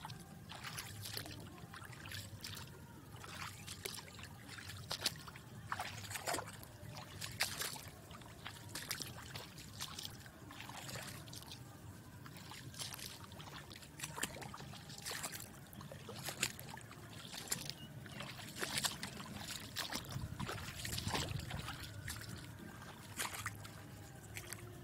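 Floodwater in a waterlogged field trickling and sloshing, with frequent irregular small splashes over a steady low rumble.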